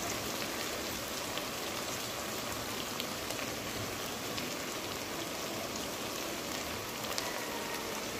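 Sliced onions frying in hot oil in an aluminium pressure cooker, a steady sizzle with scattered crackles, the onions almost golden and ginger-garlic paste just added.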